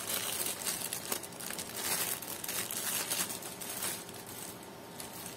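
Plastic packaging crinkling and rustling as it is handled and cut open; the rustling dies down about four seconds in.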